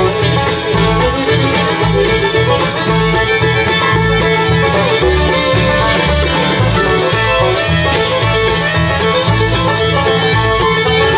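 Bluegrass band playing an instrumental break between vocal lines, with banjo, guitar and fiddle over a pulsing bass line.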